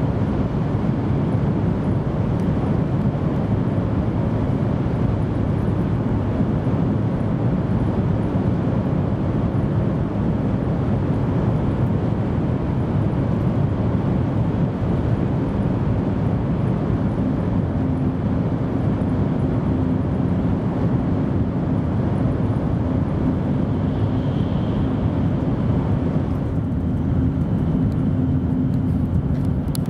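Cabin noise of an N700-series Shinkansen at speed: a steady deep rumble of wheels and air rushing past while the train runs through a tunnel. The sound thins a little near the end as the train comes out into the open.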